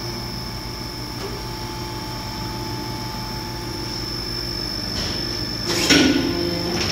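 Engel ES 330/80 HL hydraulic injection moulding machine running: a steady low hum with a high whine over it. A loud, short noisy clatter about six seconds in.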